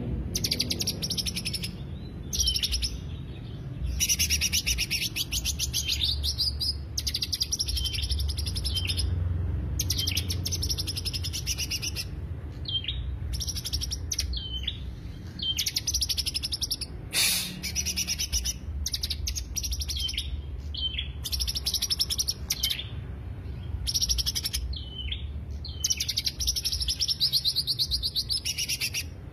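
Green leafbird (cucak hijau) singing: a run of high-pitched, rapid chattering trills in phrases a second or two long, separated by short pauses, over a low steady hum.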